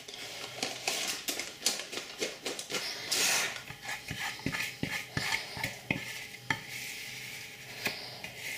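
Glass mixing bowl knocking and scraping as a sticky chocolate biscuit mixture is tipped and scraped out into a paper-lined cake tin: a run of sharp knocks and clicks, with a short scraping sound about three seconds in.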